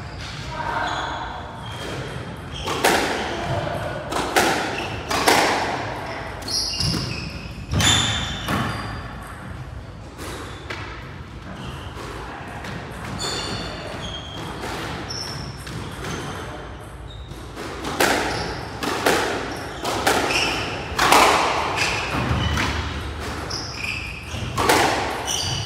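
Squash rally: the ball is struck by the rackets and smacks off the walls, with sharp echoing hits about every second and a quieter stretch in the middle, while shoes squeak in short chirps on the court floor.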